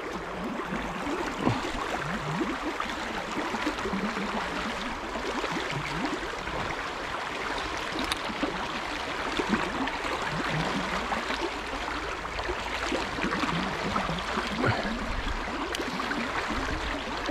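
Fast, high river water rushing and burbling past in a steady, unbroken wash.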